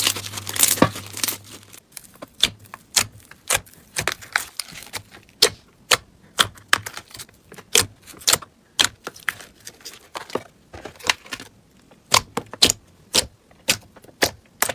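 Slime being worked by hand, giving a run of sharp, irregular clicks and pops a few times a second, denser and crackling for the first couple of seconds.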